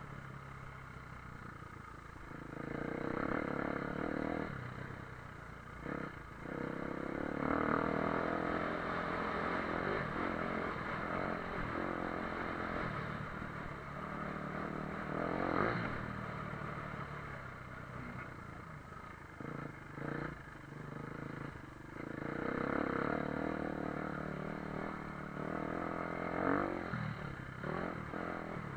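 Dirt bike engine being ridden hard, its pitch repeatedly climbing as it revs out and falling as the throttle shuts, with brief dips in power about six and twenty seconds in.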